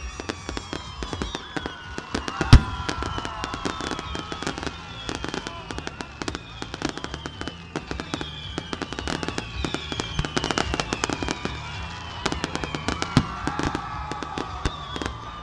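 Fireworks display: a dense run of cracks and pops, with one loud bang about two and a half seconds in. Repeated falling whistles sound over the crackle.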